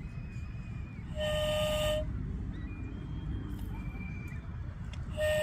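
A vehicle horn sounding twice, each a steady honk of under a second, about four seconds apart, over a low steady rumble.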